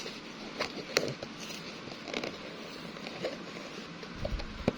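Cardboard blind box being pried and torn open by hand, with scattered clicks and crackles from the packaging and a low thump near the end.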